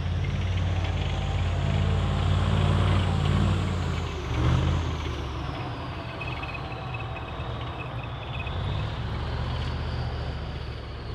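Heavy armoured vehicle's engine running, louder in the first half with a brief surge about four and a half seconds in, then easing to a lower, steadier run.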